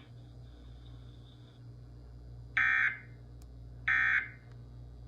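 Emergency Alert System end-of-message (EOM) data bursts played over a radio: short, identical electronic squawks a little over a second apart, two in full and a third starting at the very end. They signal the end of the test message.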